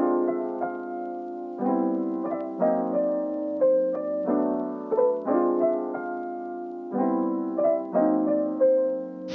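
Soft background piano music, slow chords and single notes with gentle sustained tones.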